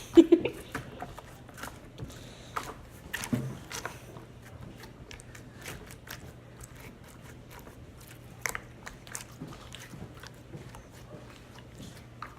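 Homemade slime being squeezed and stretched by hand, giving irregular sticky clicks and small pops.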